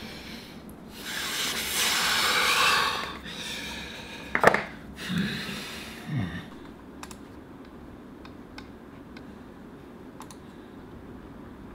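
Rustling as a phone box and charger are handled, a sharp knock as they are set down, and two short low grunts. Then comes a run of sparse, faint computer mouse clicks.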